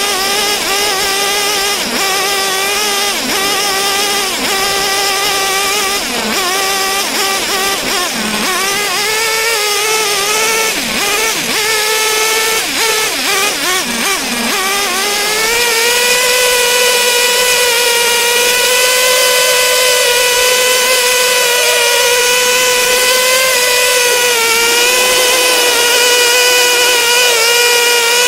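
A small engine running at high revs, a high buzzing note that dips briefly every couple of seconds at first, wavers, then climbs about halfway through and holds steady at the higher pitch.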